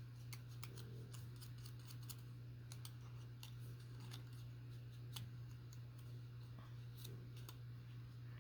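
Faint, irregular snips and clicks of scissors cutting paper, over a steady low hum.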